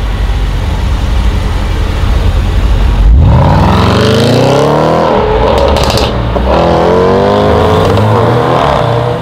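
Range Rover Sport SVR's supercharged V8 rumbling at low speed, then, about three seconds in, accelerating hard under full throttle. The engine note climbs, drops at a gear change or two, and carries a quick burst of exhaust crackles midway.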